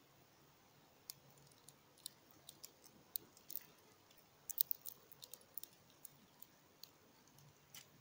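Irregular sharp clicks and taps, busiest and loudest about halfway through: a small bird pecking at seed on a wooden bird-feeder tray.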